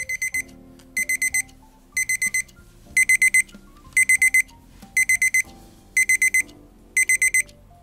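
Electronic beeper of a battery quartz alarm clock movement sounding its alarm: rapid groups of about four high beeps, repeating once a second, a little louder after a few seconds.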